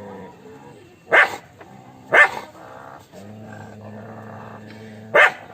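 A dog barking: three sharp, loud barks, the last after a pause of about three seconds, with a low steady tone in the gap.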